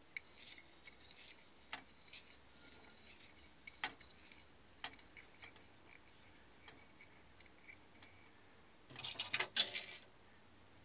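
Faint scattered clicks and ticks of hands winding thread around a copper tube fixed in a jar lid. A louder cluster of clicks and rattles comes about nine seconds in.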